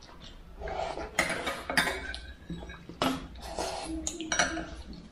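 Cutlery clinking against dishes during a meal: several sharp, irregular clinks with a brief ring after each.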